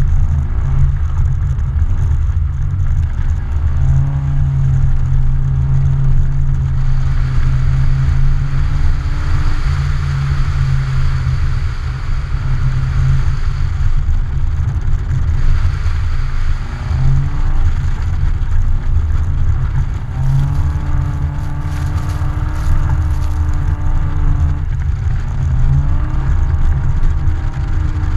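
Car engine revving in repeated rising pulls as the car powerslides on ice, two of the pulls held for several seconds. A rushing wind noise on the outside-mounted camera runs underneath.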